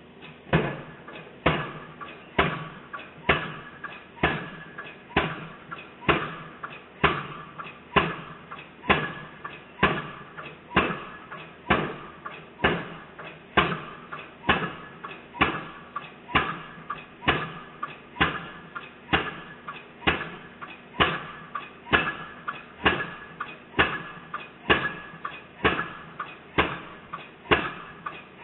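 Rig-mounted hydraulic piling hammer driving a steel pile for an overhead-line foundation. The hammering starts suddenly and keeps a steady rhythm of blows, about two a second, each with a short metallic ring.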